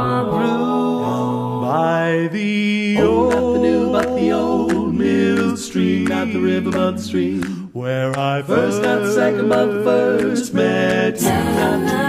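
A cappella vocal group singing in harmony with no instruments, several voices over a low sung bass line that moves in held notes.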